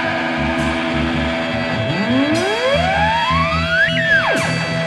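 Live stoner/doom metal band playing: distorted electric guitar and bass over drums with a held note. A pitch glide climbs for about two seconds, peaks about four seconds in, then drops sharply.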